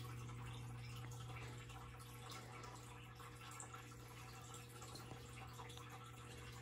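Faint steady low hum of room tone, with no distinct events.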